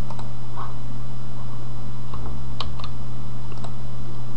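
Scattered sharp clicks of a computer mouse and keyboard, about eight or nine irregular taps, over a steady low hum.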